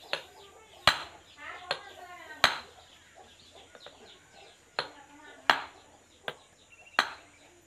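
Hand hammer striking a steel rod set on the shaft of a Sonalika tractor water pump, driving a part in: about seven sharp blows at an uneven pace, some loud and some light.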